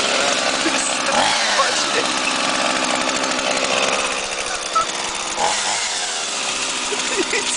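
Chainsaw engine running steadily and loudly, its pitch rising and falling as the throttle is worked.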